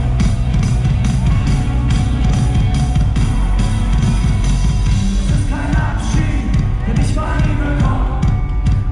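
Loud live hip-hop music over a concert sound system, with a heavy, steady bass beat; a melodic line or voice comes in over it in the second half.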